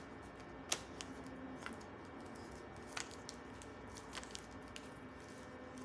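Tarot cards being handled on a table: scattered light clicks and taps of card stock as cards are drawn from the deck, the sharpest about three-quarters of a second in and another at about three seconds.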